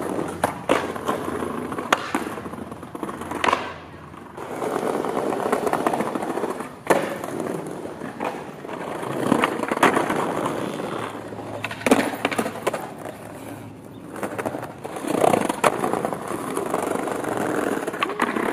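Skateboard wheels rolling over brick pavers, the rumble swelling and fading as the boards pass. Sharp clacks of the boards popping and landing tricks come again and again throughout.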